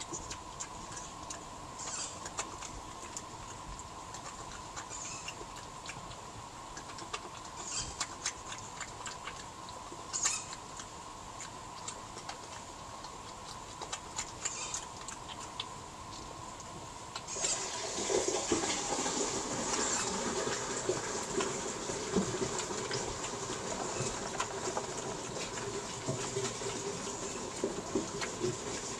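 Eurasian badgers eating peanuts from a plastic feeding tray: scattered crunches and clicks at first, then louder, busier crunching from about two-thirds of the way in, over a faint steady hum.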